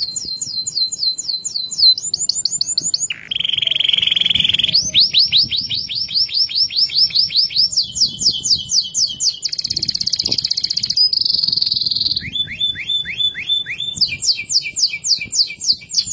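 Domestic canary singing a loud, unbroken song of rapid trills, switching every second or two to a new run of repeated notes. Among the runs are short held notes and a fast buzzy rattle near the middle.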